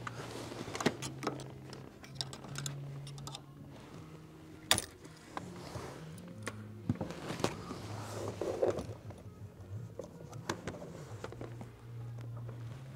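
Background music with a low bass line that steps from note to note, over scattered clicks and knocks of hands and tools working on the clutch master cylinder mounting behind the pedals.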